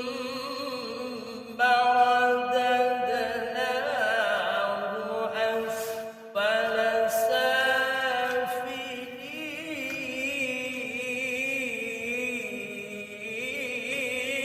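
Male voice reciting the Qur'an in melodious tilawah style, drawing out long ornamented melismatic notes. It rises louder about a second and a half in, with a brief breath break near the middle.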